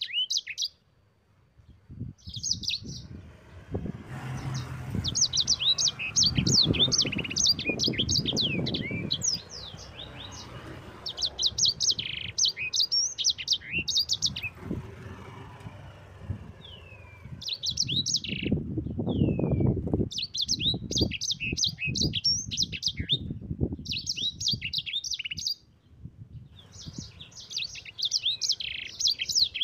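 A yellow-fronted canary (sanger, or Mozambique canary) singing long, rapid rolls of high chirps in bursts, with brief pauses. A low, irregular rumbling noise sits under the song in two stretches, early on and past the middle.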